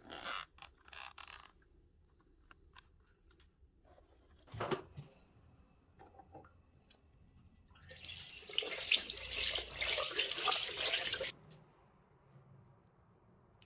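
Bathroom tap running into a washbasin, turned on about eight seconds in and shut off abruptly about three seconds later. Before it come small handling clicks and a short knock.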